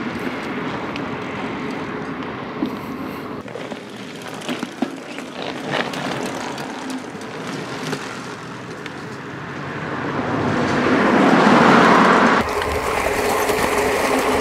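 Mountain bike riding on a gravel road: steady tyre and wind noise with scattered crunching ticks. The noise swells into a louder rush about ten seconds in, which cuts off suddenly near the end.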